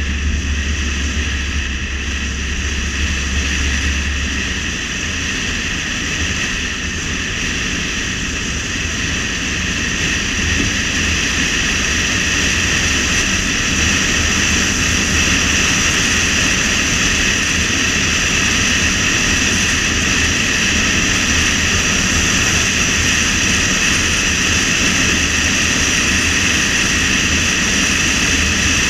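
Steady driving noise of a car at road speed: tyre and wind noise with a steady whine on top. A low hum drops away about five seconds in, and the noise grows a little louder about ten seconds in.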